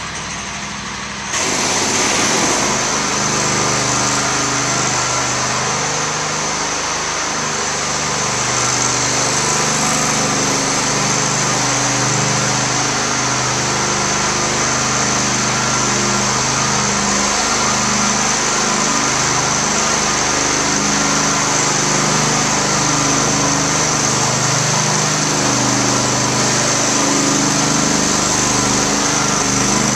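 Propane-powered Phoenix Titan floor burnisher running steadily under load, its small engine's hum mixed with a constant high whine from the spinning pad. The sound steps up in level about a second in and then holds steady.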